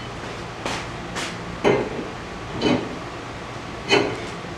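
A hammer striking metal: about five sharp, ringing blows at uneven intervals, roughly half a second to a second and a half apart.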